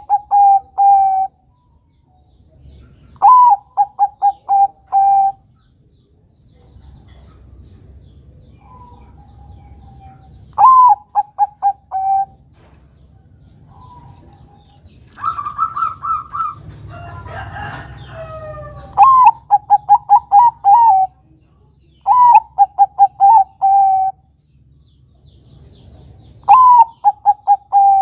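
Zebra dove (perkutut) singing its cooing song: about five phrases a few seconds apart, each a higher opening note followed by a quick run of four or five lower coos. Midway a longer call of a different kind breaks in.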